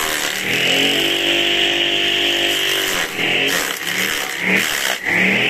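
Motor-driven grass chopper running and shredding grass, with a steady hum and a hiss of cutting blades. Its pitch sags and recovers a few times over the last couple of seconds as the blades take load.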